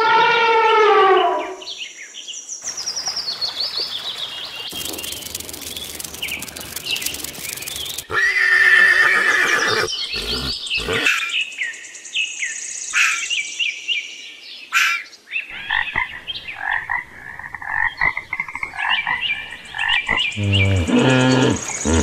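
A string of different animal calls and bird chirps, one after another, changing every few seconds; the first is a falling call lasting about a second and a half.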